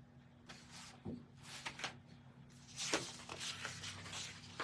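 Printed paper sheets rustling as they are picked up and handled, a few light crinkles at first and a busier run of rustling in the second half, over a faint steady hum.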